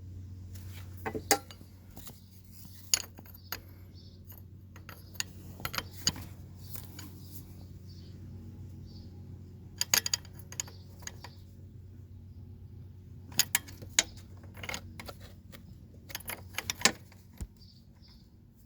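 Metal hand tools clinking and tapping against metal parts: irregular sharp clicks, singly and in small clusters, over a steady low hum.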